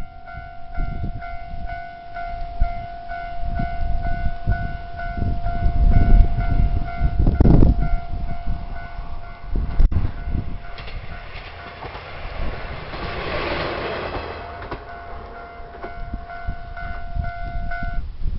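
Japanese level-crossing warning bell ringing in a steady pulsing pattern while a train runs over the crossing, its wheels clattering over the rail joints with a heavy low rumble that peaks a few seconds in. The bell stops near the end.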